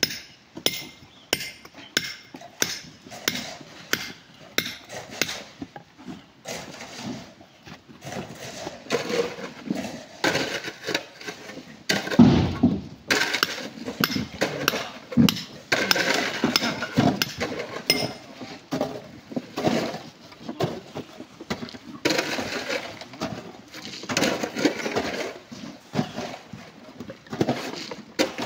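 Hammer blows on rock, struck by hand at about two a second, giving way after about six seconds to denser, irregular knocking and clattering as the rock is broken up.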